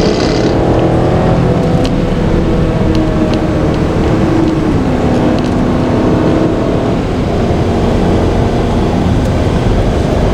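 Car engine and road noise while driving, the engine note rising slowly, then dropping to a lower steady note about four and a half seconds in.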